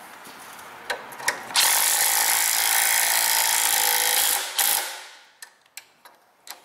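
Cordless drill spinning a socket on a long extension, running an exhaust flange bolt down on a new catalytic converter. It whirs steadily for about three seconds and then winds down, with a couple of light metal clicks just before it starts.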